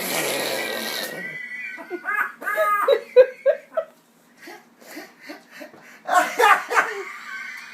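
A person laughing hard in repeated bursts of breathy, pulsed laughter, loudest about two to four seconds in and again near the end.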